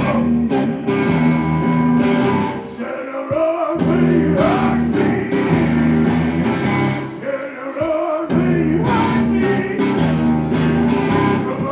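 Live rock music played on electric guitars, including a hollow-body electric, with a repeating bass-note riff and a voice singing over it.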